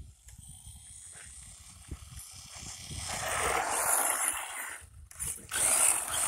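Electric 1/16 Cheerwing Rocket 4x4 RC short course truck driving: a high motor whine and tyre noise over the ground that swell loudly about three seconds in, drop away briefly, then surge again near the end.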